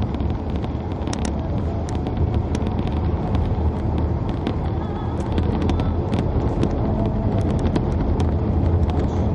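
A car driving: steady low engine and tyre noise on the road, with many short light clicks scattered through it.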